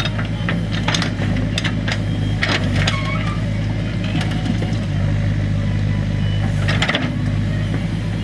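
Heavy diesel engine running steadily, with several sharp knocks and clatters over it, the sound of stones being loaded by a backhoe loader.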